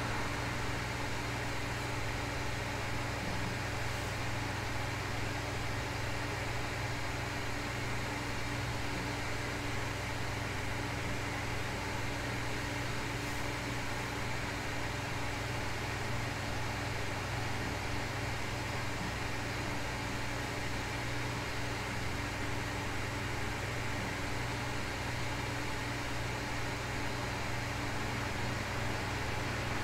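Steady, even hiss of white and pink noise with a constant low hum underneath.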